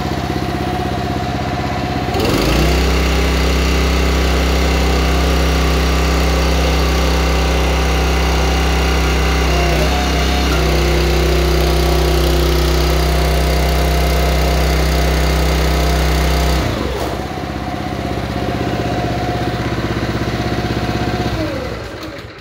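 Small gas engine of a NorthStar 37-ton log splitter running. Its sound gets heavier about two seconds in, shifts in pitch around ten seconds, and drops back to its lighter running note at about seventeen seconds. It is shut off just before the end.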